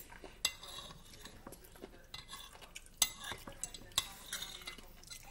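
Metal spoon and fork scraping and clinking against a china plate while scooping food, with a few sharper clinks about half a second in, at about three seconds and at about four seconds.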